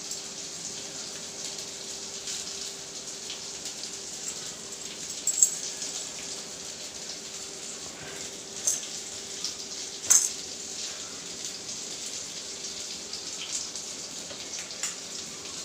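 A steady hiss with a faint hum beneath it, broken by a few light clicks and taps as chicken pieces are set on a plate of vegetables, the sharpest about five and ten seconds in.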